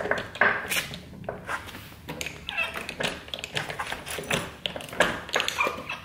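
Irregular clicks and knocks from a torque wrench ratcheting on a motorcycle's rear axle nut, mixed with palm smacks on the rear tyre to seat the wheel as the nut is tightened.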